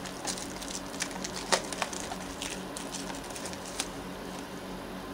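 Scattered light crinkles and clicks from a sealed trading-card pack being handled and fumbled with, over a steady low hum.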